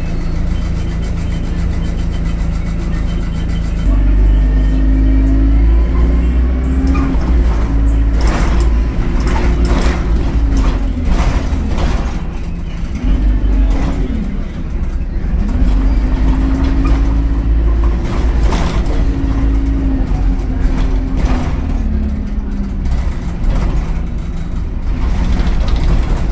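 Alexander Dennis Enviro200 single-deck bus engine idling steadily, then pulling away about four seconds in, its note climbing, dropping back and climbing again as it accelerates through the gears, with frequent rattles.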